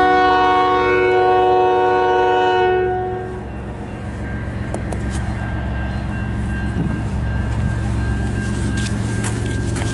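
CN freight locomotive's air horn sounding one loud multi-note chord for about three seconds, then the steady low rumble of the diesel locomotives, with a few faint clicks.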